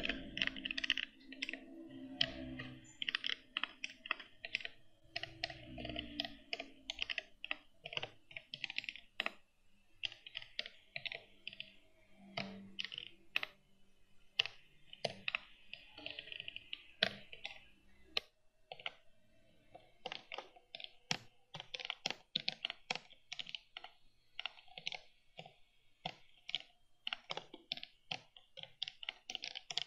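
Computer keyboard typing: irregular runs of quick keystrokes with short pauses between them.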